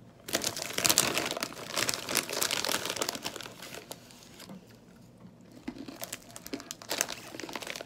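A crinkly pretzel-pieces snack bag rustling and crackling as it is handled and a hand rummages inside. The crackling dies down about halfway through, then starts again near the end.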